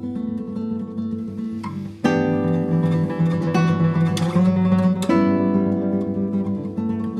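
Two acoustic guitars playing sustained, ringing chords together, with new chords struck firmly about two seconds and five seconds in.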